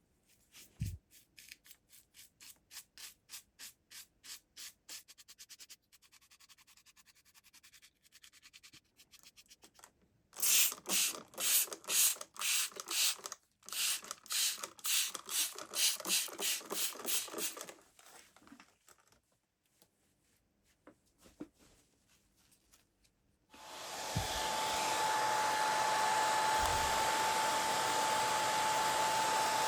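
Rhythmic rubbing strokes, about three a second, faint at first and then louder for several seconds. Near the end a blower like a hair dryer starts and runs steadily with a thin whine.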